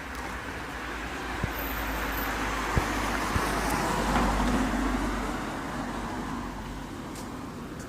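A road vehicle driving past, its tyre and engine noise building to a peak about four seconds in and then fading away.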